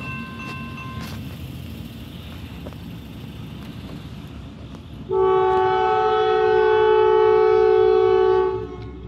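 Norfolk Southern locomotive's air horn sounding one long blast of several notes at once, starting about five seconds in and lasting about three and a half seconds, over a low rumble from the approaching train.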